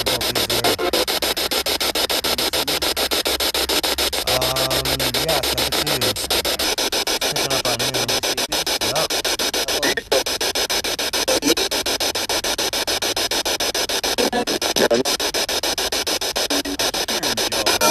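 A spirit box (ghost box) sweeping through radio stations: loud, rapid, choppy static with brief snatches of pitched, voice-like sound. The static cuts out for a moment about ten seconds in. The ghost hunters take the voice fragments for spirit voices, EVPs saying 'Marie' and 'carry on'.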